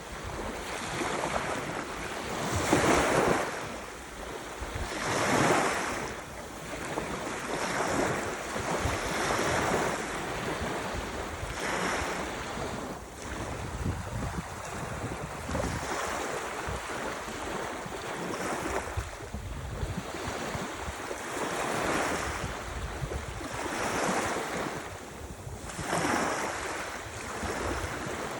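Ocean surf: waves breaking and washing in every few seconds, the loudest about three and five seconds in.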